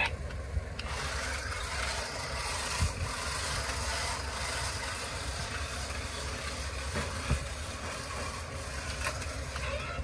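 Toy RC drift car's small electric motor and plastic wheels running across a tiled floor: a steady whirring hiss that starts about a second in.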